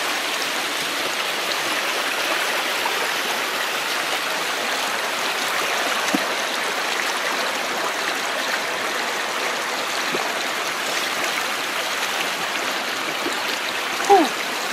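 Small rocky stream running steadily, a continuous rush of water over stones. A brief, sharp, louder sound stands out near the end.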